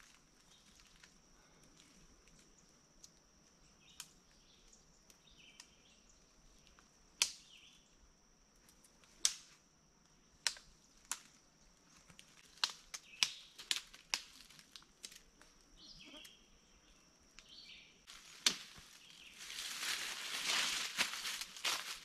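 A hiker's footsteps on dry leaf litter and twigs: scattered quiet snaps and crackles, building to steady crunching steps near the end. A faint, steady high-pitched tone sounds underneath and stops shortly before the crunching starts.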